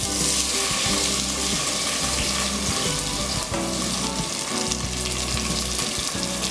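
Sliced onions hitting hot oil and ghee with whole spices in a pressure cooker: the sizzle starts suddenly as they go in, then carries on steadily as they begin to fry.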